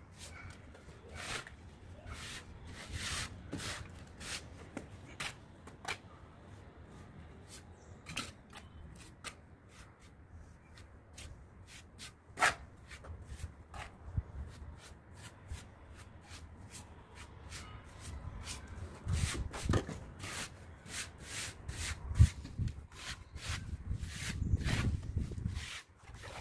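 Mason's trowel scraping and smoothing wet cement render on a brick pillar, with irregular sharp scrapes and clicks as the steel meets mortar and brick. There is a louder knock about twelve seconds in and another near the end.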